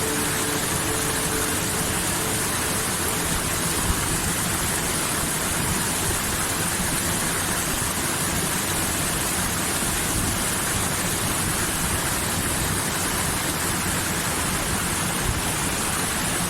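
Running water of a stream, a steady even rush that does not change.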